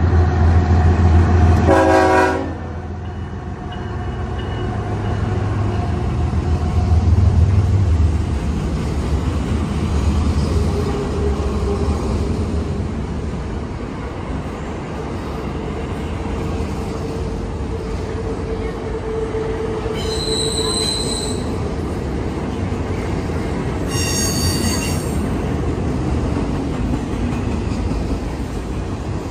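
A diesel-hauled double-stack intermodal freight train passing. The locomotive horn chord cuts off about two seconds in, over a heavy low rumble. Then the container cars roll by with steady wheel-and-rail rumble and clatter, and the wheel flanges squeal briefly twice on the curve.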